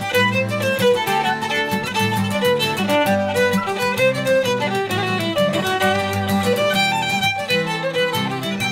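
Shetland fiddle music: a bowed fiddle tune over low, held backing notes.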